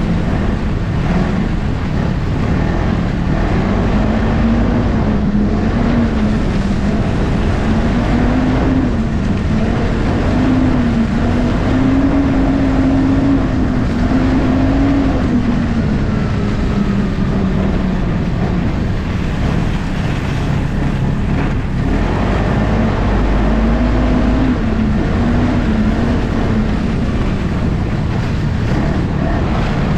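Ski-Doo 600 ACE snowmobile's three-cylinder four-stroke engine running while riding, its pitch rising and falling slowly with the throttle and easing off for a few seconds past the middle.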